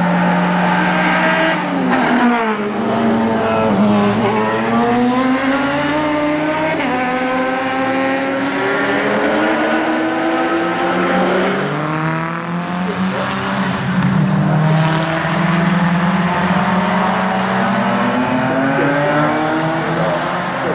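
Track cars at full throttle passing by on a race circuit. One engine's pitch drops as it passes about two seconds in, then engines rev up through the gears in long rising sweeps with the pitch falling back at each upshift.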